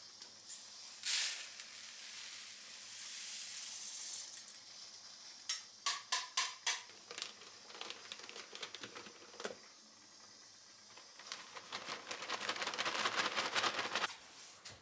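Plastic bag rustling and handling clatter as rice bran from a home rice polisher is saved into a bag. There is a quick run of sharp clicks about halfway through, and a long, dense crackling rustle near the end.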